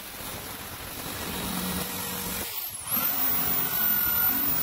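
Electric drill spinning a wire brush wheel against the heater's steel stand, scrubbing off rust and old paint. The motor whine and brush scrape ease briefly just past halfway, then come back louder.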